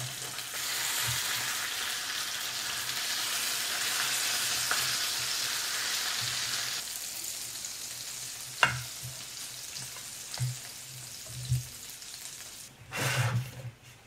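Whole fish sizzling in a hot electric grill pan while it is basted, the sizzle dropping off sharply about seven seconds in. Then come a few short scrapes and knocks of a spatula against the grill plate as the fish is lifted off.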